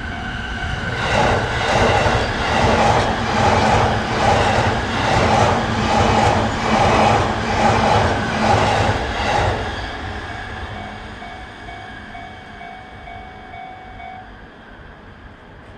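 Electric train passing over a level crossing, its wheels clattering in a steady beat of about one knock every 0.7 s, then fading away after about ten seconds. A crossing warning bell rings over it and stops near the end.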